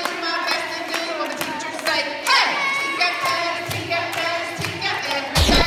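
A group of children singing together in time with hand clapping. Just before the end, loud pop music with a heavy beat comes in.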